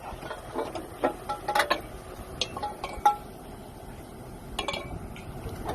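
A handful of sharp metallic clinks and knocks with brief ringing, several in the first three seconds and another pair later on.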